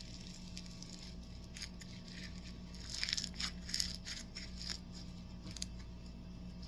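Faint crinkling and crackling of a small plastic slime container and its packaging being handled, busiest about three to four seconds in.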